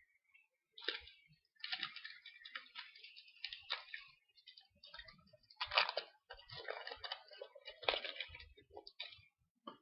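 Foil trading-card packs and cards being handled: crinkling, crackling and rustling in uneven runs, loudest about six and eight seconds in.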